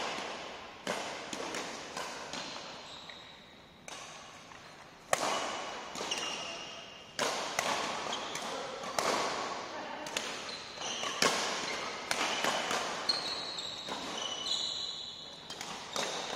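Badminton rally: rackets hitting a shuttlecock again and again, each hit a sharp crack roughly a second apart that echoes in a large hall. Short shoe squeaks on the court floor come in the later half.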